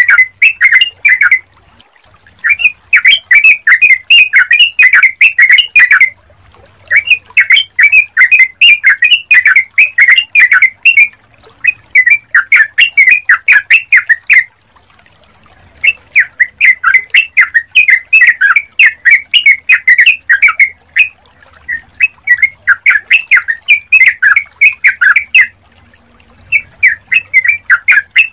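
Yellow-vented bulbul (trucukan) singing loudly in phrases of rapid, chattering notes, each phrase a few seconds long, with short pauses between them.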